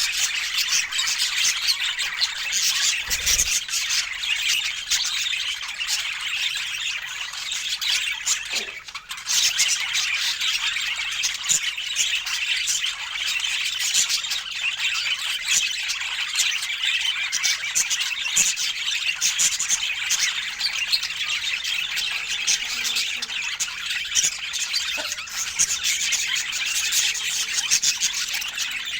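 Budgies chattering and squawking without pause, a dense high-pitched warble, with a brief lull about nine seconds in.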